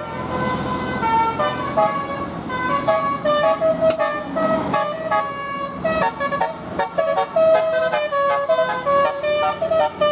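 Bus 'telolet' horn: a set of musical air horns playing a quick tune, stepping from note to note, with several tones often sounding together.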